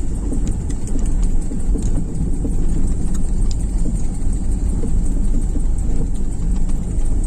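Car cabin noise while driving slowly over a potholed gravel road: a steady low rumble from the tyres and suspension, with scattered irregular clicks and knocks as stones crunch under the wheels and the car jolts through the holes.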